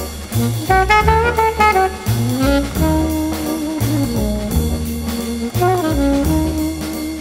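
Background jazz music, a brass melody over a steady bass line.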